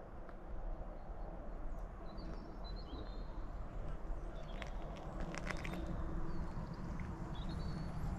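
Footsteps on a tarmac garden path over a steady outdoor rumble, with a few faint bird chirps.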